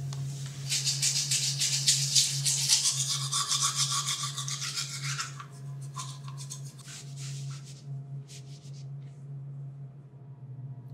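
Teeth being brushed with a toothbrush in quick back-and-forth scrubbing strokes for about five seconds, then a few scattered strokes, over a low steady hum.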